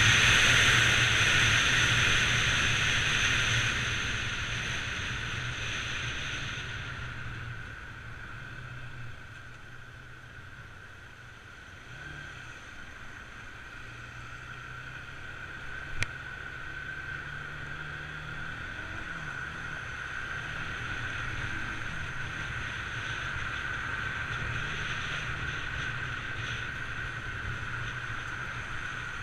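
Bajaj Pulsar 200 NS single-cylinder motorcycle engine running under way, with wind rushing over the microphone. Wind and engine die down over the first several seconds as the bike slows. The engine note then shifts and builds gradually again, with a single sharp click about halfway through.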